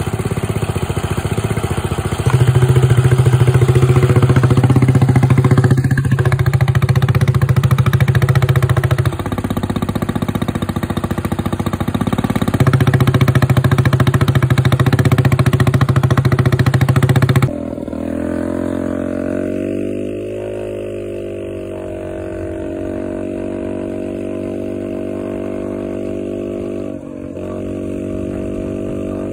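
Motorcycle exhaust running loud, surging up in two long revs during the first half. About halfway through the sound changes abruptly to steadier running, its pitch sinking for a couple of seconds and then holding.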